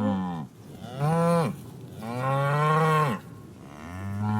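Cow mooing: the end of one moo, then three long, low moos in a row, each falling in pitch as it ends.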